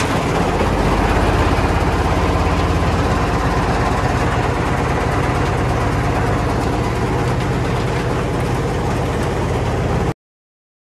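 Stone jaw crusher running with a steady, loud mechanical din from its flywheel drive and jaws. The sound cuts off suddenly near the end.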